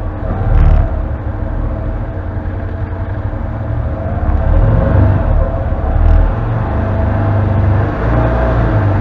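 Can-Am Defender HD10 side-by-side's V-twin engine running at low speed as it crawls over rough trail, its rumble rising and easing with the throttle. There are a couple of short knocks from the machine jolting over the ground.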